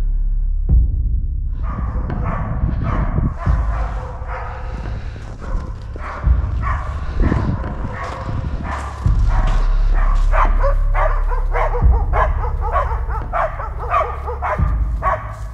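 Hunting laikas barking repeatedly in quick, short barks, starting about a second and a half in: the dogs are baying a wounded moose they have tracked down.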